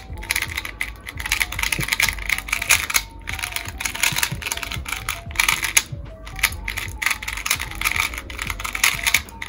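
Pro Shop MGC 2x2 magnetic speed cube turned rapidly by hand for its first turns out of the box: a fast, continuous clacking of its plastic layers, with brief pauses about three and six seconds in. Faint background music underneath.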